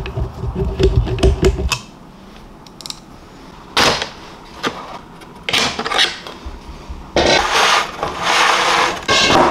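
A screwdriver turning a screw into the corner bracket of an aluminium picture frame, a rapid clicking grind for the first couple of seconds. Then the aluminium frame rails and the backing board scrape and slide against each other in three bursts, the last one long.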